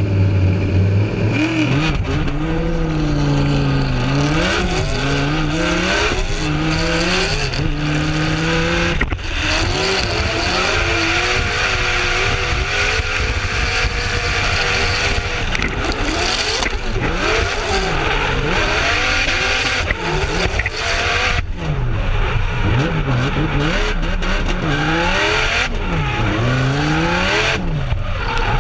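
Drift cars in a tandem run: engines revving up and down over and over as the drivers work the throttle through the slides, over the constant screech and hiss of spinning tyres.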